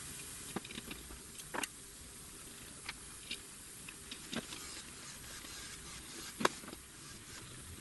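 Scattered small clicks and taps of a screwdriver and screws as a circuit board and its bridge rectifier are fastened to an aluminium heatsink, over a faint steady hiss; the sharpest click comes about six and a half seconds in.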